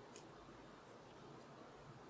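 Near silence: faint room hiss, with a soft click about a quarter second in as hands flex a small stitched leather holder.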